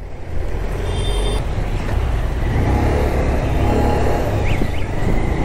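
Motorcycle riding along the road: a steady low engine rumble under a rush of wind and road noise, growing louder over the first second or so as the bike picks up speed.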